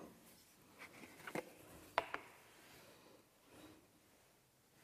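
Faint clicks and taps of a small glass pepper shaker with a metal lid being handled and shaken over raw pork ribs, a few light knocks with one sharper click about two seconds in.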